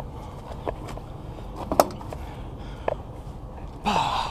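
Three sharp knocks or clicks, about a second apart, over a low steady rumble, then a brief louder burst near the end.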